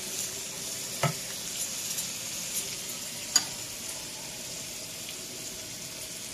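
Thick raw steaks freshly laid into a hot pan, sizzling steadily in oil as they start to sear. Two short knocks sound over the sizzle, about a second in and again past three seconds.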